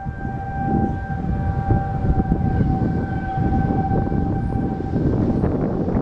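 Outdoor tornado warning siren holding a steady tone that breaks off about five seconds in, over low background noise.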